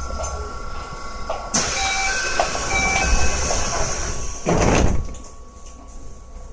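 Doors of a renewed Keio 1000 series commuter train closing, heard from inside the car. A sudden hiss comes about a second and a half in, then a two-note door chime sounds twice, and the doors bang shut about four and a half seconds in.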